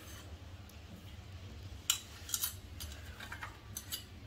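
A few light metallic clinks and taps of a steel spoon against a stainless-steel pot, the sharpest about two seconds in, over a low steady hum.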